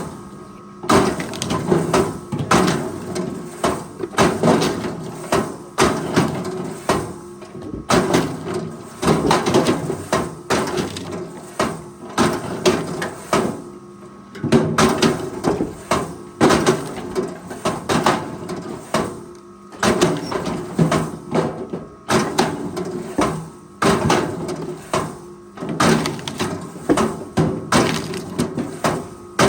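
Forestry machine at work: a steady engine hum under repeated, irregular cracking and snapping of wood.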